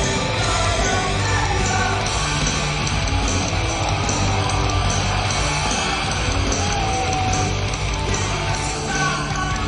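Loud hard-rock music with shouted vocals and guitar over a steady low bass line.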